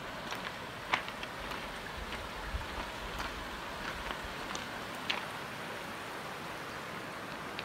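Steady hiss of water around flooded ground, with scattered sharp taps, the loudest about a second in and about five seconds in.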